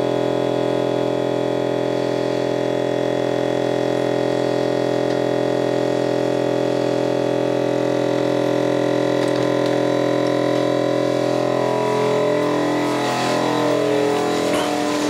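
Background music: a long held synth chord that breaks into shorter, changing notes near the end.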